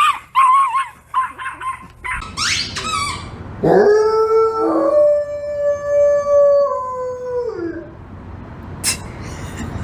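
A dog whining and yipping in short wavering cries, then giving one long howl of about four seconds that drops in pitch as it ends.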